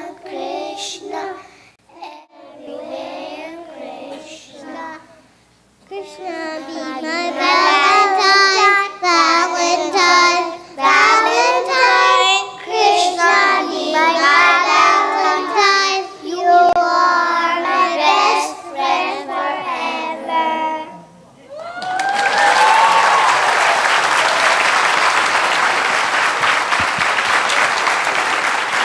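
A group of young children singing together, growing louder about six seconds in. About three-quarters of the way through the singing stops and the audience breaks into steady applause.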